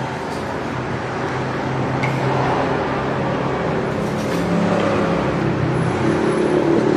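Steady road traffic noise, with car and motorbike engines passing close by, growing a little louder in the second half.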